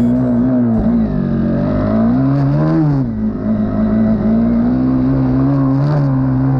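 Trail motorcycle engine running under load, its pitch dropping and climbing again as the throttle is rolled off and on.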